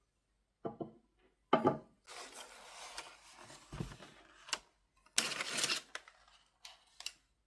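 Household handling sounds: several sharp knocks and clicks of objects being picked up and set down, with two longer stretches of rustling, scraping noise.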